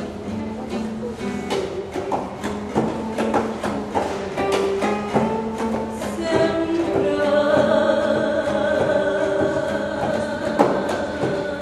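Live fado: Portuguese guitar and classical guitar (viola) playing a run of fast plucked notes, and from about six seconds in a long held sung note over the strings.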